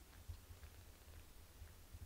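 Near silence, with a few faint, irregular soft clicks of a British Shorthair mother cat licking her kitten's fur.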